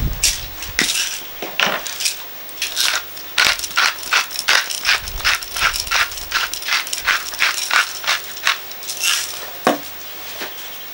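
Hand-held salt and pepper mill being twisted, its grinder rasping in short crisp strokes about three times a second. A couple of knocks are also heard.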